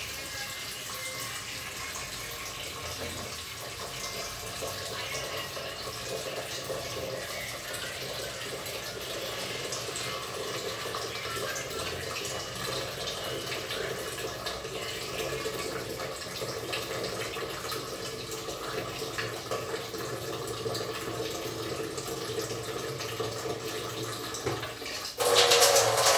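Steady rushing water noise in a small tiled kitchen. About a second before the end, a sudden louder burst of noise sets in.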